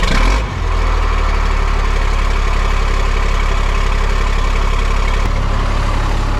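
Caterpillar 3126 inline-six diesel in a Freightliner FL60 truck catching on a cold start after sitting a couple of weeks. It flares briefly in the first half-second, then settles into a steady idle.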